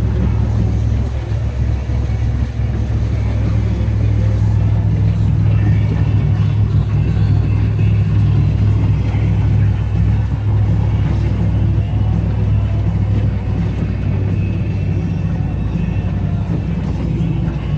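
Vehicle engine running steadily while driving slowly through deep floodwater, heard from inside the cab as a loud, even low drone.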